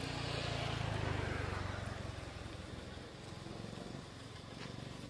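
A motor vehicle's engine passing by: a low running hum that swells over the first second or two, then fades away.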